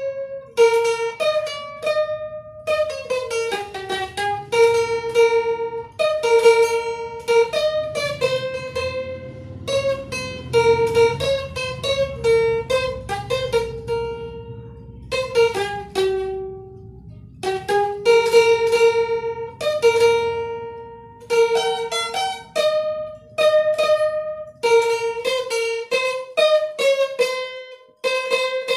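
Bowl-back mandolin played solo: a slow single-note melody whose held notes are sustained with rapid tremolo picking, in phrases with short pauses between them.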